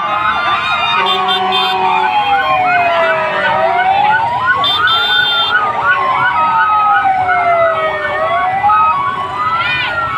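A siren wailing slowly up and down, each rise taking about two seconds and each fall about three. Under it runs a busy din of many short, quickly repeated chirps and a few brief held horn-like tones.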